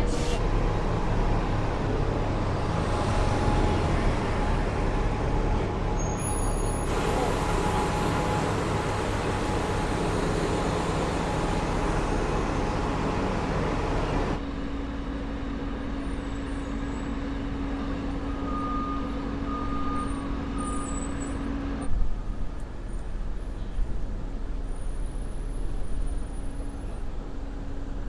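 Engine and road noise inside the cabin of a moving transit bus, for about the first half. Then quieter bus-station noise with a steady hum, broken by a sudden knock about two-thirds in.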